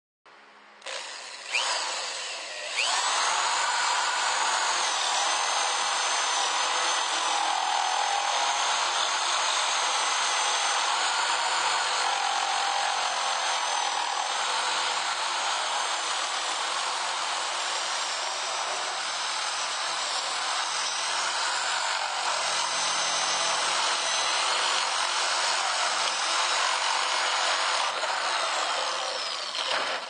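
Power drill boring through a wooden frame board with a long bit. It starts about two seconds in, runs almost without a break, and stops just before the end.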